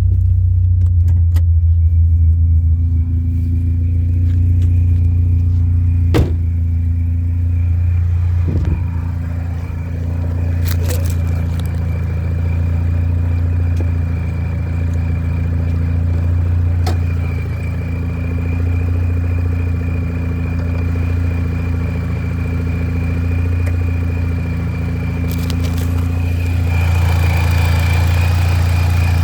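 Supercharged 1.6-litre four-cylinder engine of a modified 2004 Mini Cooper S, fitted with a Sprintex supercharger, idling steadily with a thin steady high whine over the engine hum. A couple of brief clicks sound about 6 and 9 seconds in.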